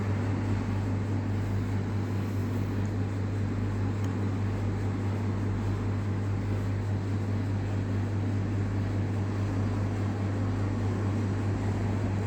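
A steady low hum over a constant rushing noise, unchanging throughout, like a running motor or machine.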